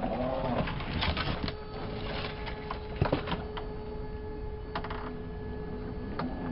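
Axial RR10 Bomber 1/10 scale electric rock racer crawling slowly over rock: a steady whine from its electric motor and gear train, stock parts from a Traxxas TRX-4, with scattered clicks and knocks of tyres and chassis on stone. The sharpest knock comes about three seconds in.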